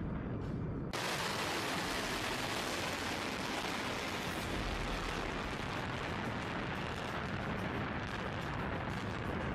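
Rocket motors of launching missiles roaring. It starts suddenly about a second in and becomes a steady, loud rushing roar, with some crackle near the end.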